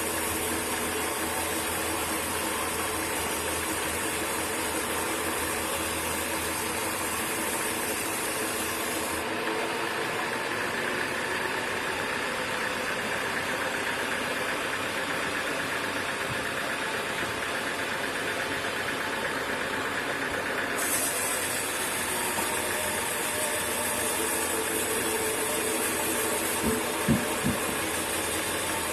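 Sawmill machinery running steadily, a continuous motor-driven mechanical noise. Its character shifts for a stretch in the middle, and a few short knocks come near the end.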